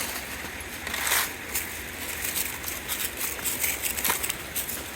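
Footsteps crunching irregularly through dry leaves and twigs, with scattered crackles.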